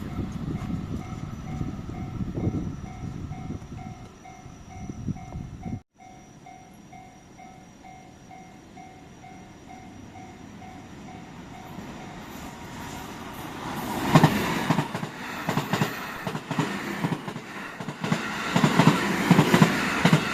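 Level-crossing warning bell dinging over and over while a train runs past, its noise cut off about six seconds in. The bell keeps going on its own, then another train comes through from about twelve seconds in, its wheels thudding rhythmically over the rail joints.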